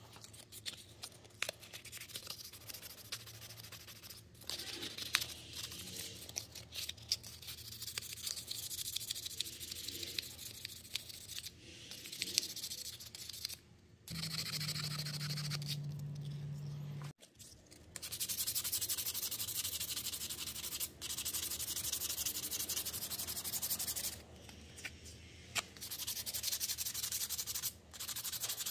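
Fine sandpaper rubbed by hand over a hand plane's wooden knob and tote: stretches of scratchy back-and-forth sanding strokes with short pauses. A steady low hum runs for about three seconds near the middle.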